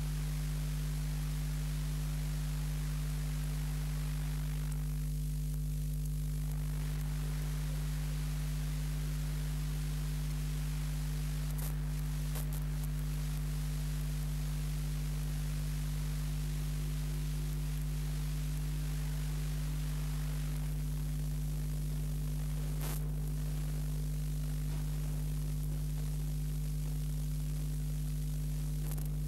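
Steady electrical mains hum, with its overtones, under a constant hiss; there is no other sound apart from a few faint clicks.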